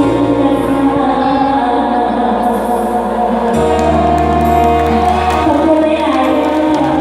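Live band music with singing, in a Thai luk thung / mor lam style, with a steady bass line.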